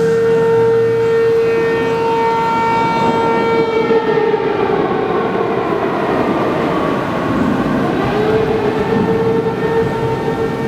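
P-15 outdoor tornado warning siren wailing on a steady pitch, a tornado warning signal. Partway through, its tone sags lower and fades, then rises back about eight seconds in.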